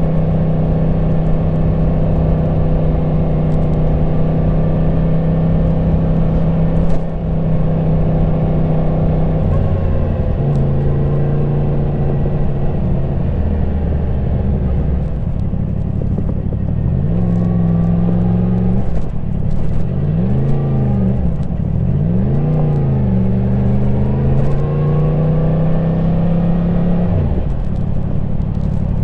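Yamaha MT-10 SP's crossplane inline-four engine through its stock exhaust, heard onboard while riding. It holds a steady note at first, drops lower about a third of the way in, then revs rise and fall several times in quick swells as the throttle opens and gears change, settles again, and falls off near the end.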